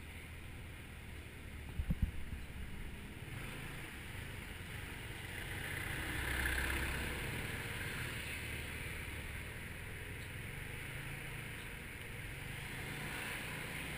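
Motorbike engine running at low speed in slow street traffic, heard from a camera mounted on the bike, with wind and road noise. Two sharp knocks come about two seconds in, and the engine and traffic noise swell up a little past the middle.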